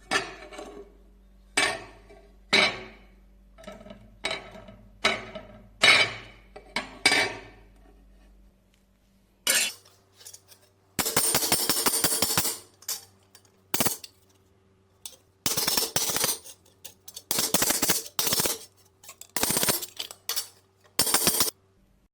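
Metal being struck about eight times at a steady pace, each knock ringing briefly. After a pause, a small motor hums while abrasive work on steel comes in repeated harsh bursts of a second or so, typical of grinding or wire-brushing rust off a blade.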